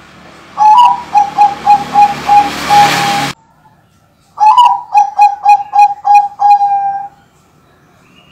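Bangkok-type zebra dove (perkutut) cooing: two song phrases, each a quick run of short, evenly spaced coos ending in a longer held note, the first note of each slightly higher.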